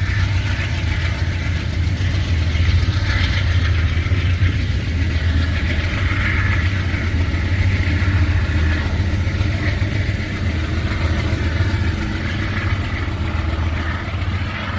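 Diesel locomotive of an Amtrak train running with a steady low engine hum and rail noise.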